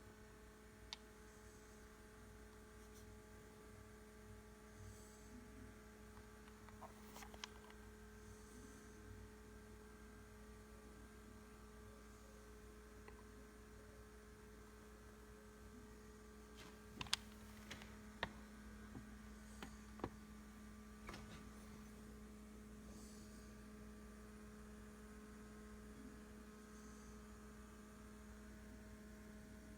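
Near silence: a steady electrical hum, with a few faint clicks scattered through it.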